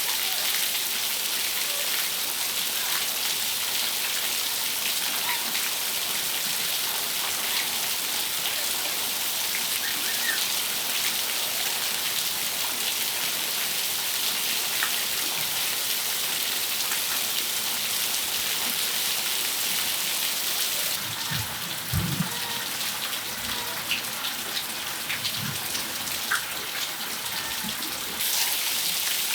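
Steady rain falling on a patio: an even hiss with scattered ticks of single drops, and a few low thuds about two-thirds of the way through.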